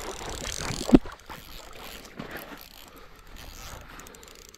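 Baitcasting reel being cranked against a hooked fish, its gears giving a fine ratcheting whir. The whir stops just under a second in with a single sharp knock, the loudest sound.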